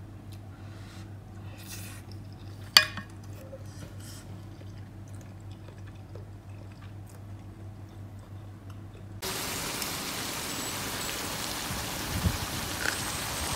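A faint low hum with small clicks and one sharp click about three seconds in. About nine seconds in it cuts abruptly to a louder, steady hiss.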